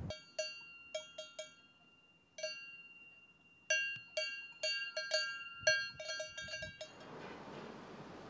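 A cowbell on a grazing cow clanking irregularly, each strike ringing briefly, with a quicker run of clanks near the end before it stops about seven seconds in. A faint steady rushing noise follows.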